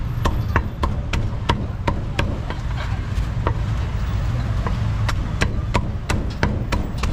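A heavy cleaver chopping roast duck on a thick round wooden chopping block: a quick irregular series of sharp knocks, about two to three a second, over a steady low rumble.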